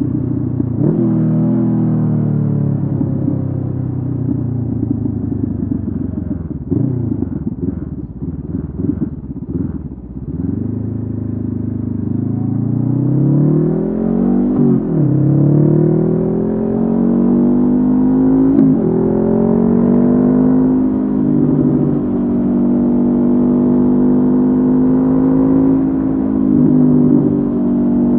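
Honda CB500F's parallel-twin engine through a Mivv GP Pro exhaust, heard while riding. It slows with an uneven off-throttle burble for a few seconds, then pulls away rising in pitch, with short dips at several upshifts, and settles into a steady cruise.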